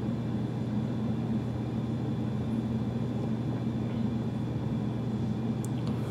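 Steady low hum of room background noise, even and unchanging, with no other sound above it.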